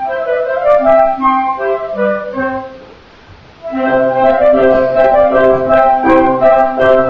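Live flute, two clarinets, saxophone and piano playing a Baroque concerto movement in arrangement. About two and a half seconds in the music breaks off for about a second, then resumes fuller, with a low piano bass line under the winds.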